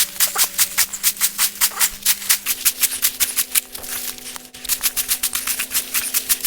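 Background music: a fast, even shaker-like beat of about seven hits a second over a held low note, which steps up in pitch about halfway through.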